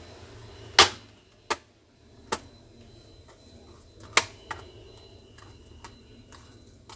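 Sharp plastic clicks and taps from handling the laptop's opened casing and parts, five or so at uneven intervals, the loudest about a second in. A faint, steady high tone sounds in the second half.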